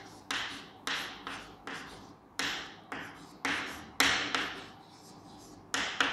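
Chalk writing on a blackboard: a string of quick taps and short scratches as letters are formed, about two strokes a second, irregular, the loudest about four seconds in and again near the end.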